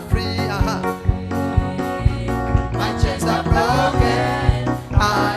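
Fast gospel worship song played on keyboard over a steady kick-drum beat of about three strokes a second, with a voice singing.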